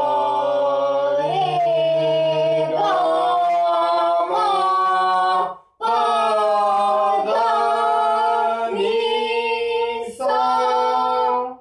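Two voices, a man's and a boy's, singing long held notes together into homemade vocal visualizers, stepping to a new pitch every second or two. There is a short break about halfway through.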